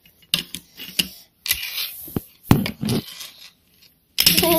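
Irregular scraping, rubbing and clattering of a handheld camera being moved close to its microphone while small plastic toy figures and a plastic toy carousel are handled on a table. A short high vocal sound comes near the end.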